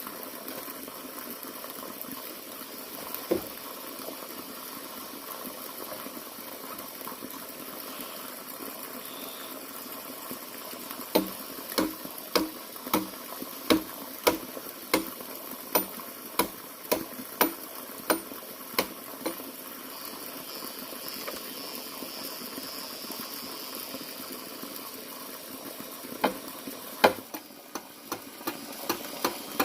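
A run of sharp knocks, about one and a half a second, over a steady hiss. The knocks start about a third of the way in and stop a few seconds later, and a few more come near the end.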